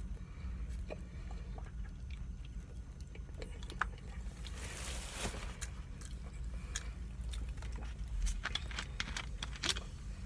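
Close-miked chewing and smacking on rotisserie chicken: scattered wet mouth clicks, a brief hissing stretch about halfway through and a quick cluster of clicks near the end, over a steady low hum.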